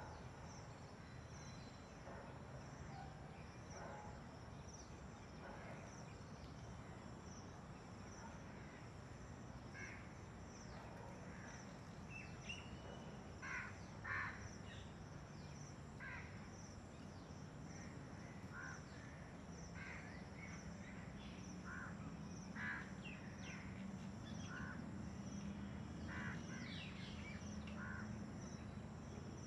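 Faint outdoor ambience: scattered short bird calls, several close together about halfway through and again later, over a low steady hum.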